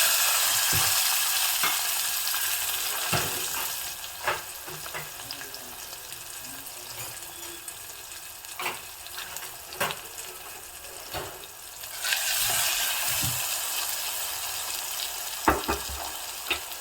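Tomato frying in hot coconut oil with a tempering of mustard seeds, cumin and curry leaves: a steady sizzle as it is stirred, with a spoon knocking against the pan now and then. The sizzle is loudest at the start, dies down after a few seconds, and jumps up again suddenly about twelve seconds in.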